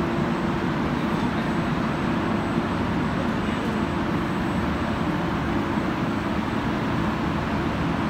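Steady machinery noise from a running EPDM insulation pipe extrusion and vulcanization line: a constant drone with a steady hum beneath it.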